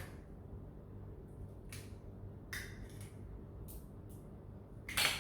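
An egg being cracked open: a few faint clicks and taps, with one sharper knock near the end.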